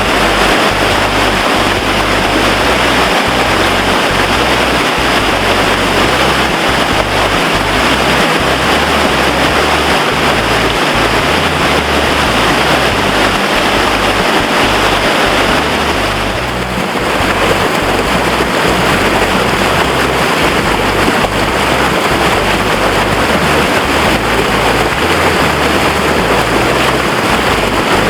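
Loud, steady rushing of creek water, an even wash of noise that dips briefly about sixteen seconds in.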